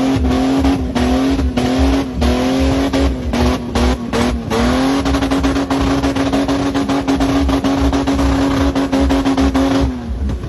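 Car engine at full throttle while the car ploughs through deep mud. For the first few seconds the revs bounce up and down about twice a second with brief cut-outs, then they hold high and steady before stopping abruptly near the end.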